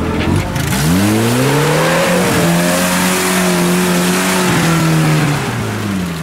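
Off-road 4x4's engine revving hard through a muddy water crossing. The revs climb steeply about a second in, hold high while the wheels churn, and drop off near the end, over a hiss of mud and water spraying from the tyres.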